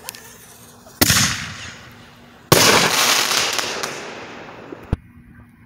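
A crackling artillery-shell firework: a sharp bang about a second in as the shell is launched from its tube, then about a second and a half later a second loud bang as the shell bursts, followed by crackling that fades away over about two seconds. A single sharp pop comes near the end.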